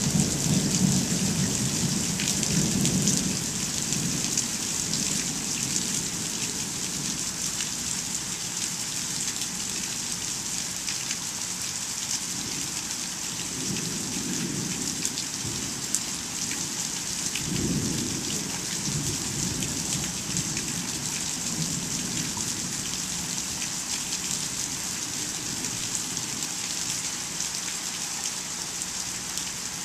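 Steady rain falling, with low rumbles of thunder in the first few seconds and again around 13 and 18 seconds in.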